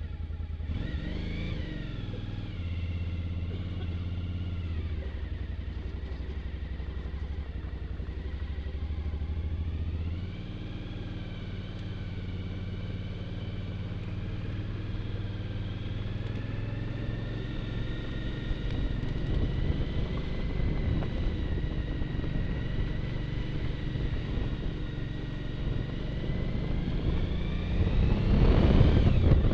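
Motorcycle engine running while riding, its pitch rising and falling with the throttle. Wind buffeting the microphone grows louder near the end as speed builds.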